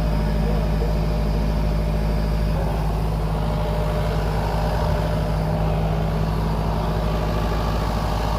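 An off-road vehicle's engine runs steadily close by. Its note shifts slightly about two and a half seconds in.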